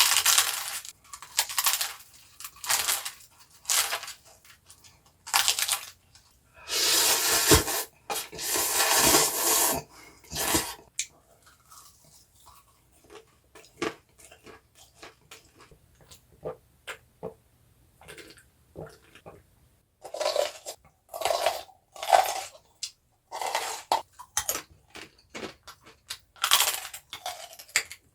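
Close-miked eating sounds of assorted blue foods: crunchy bites and chewing in separate bursts with short pauses between them, and one longer unbroken stretch about seven seconds in.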